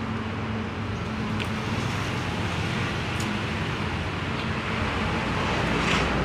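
Steady low rumble of motor vehicles, with a faint hum and a few soft ticks.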